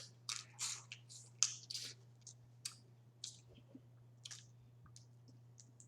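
Close-miked wet chewing and mouth clicks from eating boiled crawfish: a run of short, irregular squishy clicks, thickest in the first two seconds and thinning out after.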